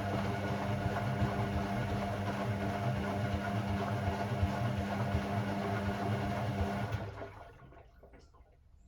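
Hoover AI130 washing machine moving water: a steady electric hum with water rushing through it. It cuts off about seven seconds in.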